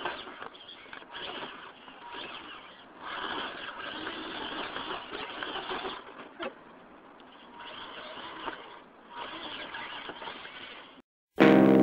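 Electric motor and gears of a Losi Night Crawler radio-controlled rock crawler whirring in stretches of a second or more as it climbs over rocks, with a few sharp clicks. The sound stops abruptly near the end and loud guitar music starts.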